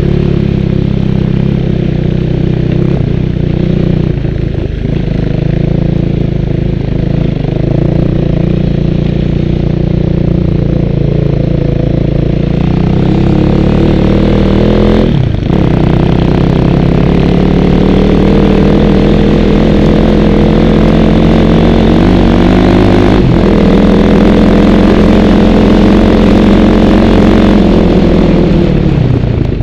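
Motorcycle engine running hard over snow, its revs climbing, dropping briefly about halfway through and again about two-thirds of the way through, then falling near the end.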